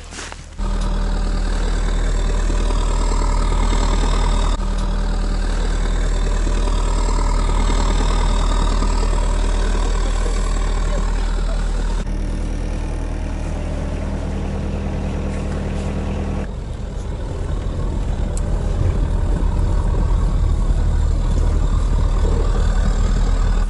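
Sherp amphibious ATV diesel engines idling close by, a steady low drone. It changes abruptly a few times, and in the last seconds becomes a rougher, pulsing rumble.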